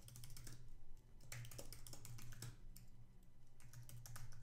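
Typing on a computer keyboard: faint, irregular key clicks over a low steady hum.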